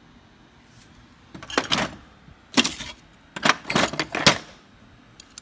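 Steel hand tools clinking and clanking against one another in a tool chest drawer as they are put down and picked up. There are three bursts of short metallic knocks, about a second and a half in, at two and a half seconds, and from three and a half to four seconds in, the last the loudest.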